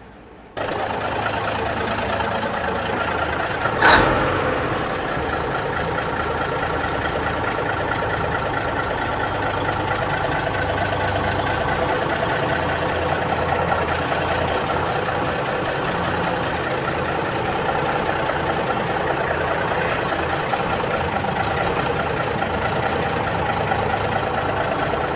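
An engine comes on suddenly about half a second in and runs steadily, with a single loud sharp knock about four seconds in.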